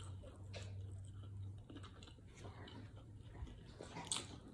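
Faint chewing of fried chicken with small mouth clicks. About four seconds in there is a sharper bite into a fried chicken leg.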